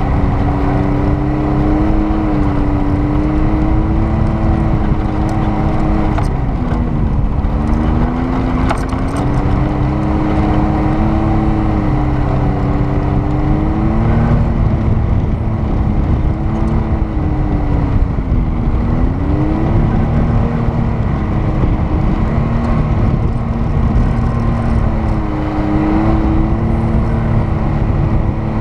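Off-road vehicle's engine pulling steadily while driving on sand, its pitch sagging and climbing back twice, about seven and nineteen seconds in, over a steady low rumble.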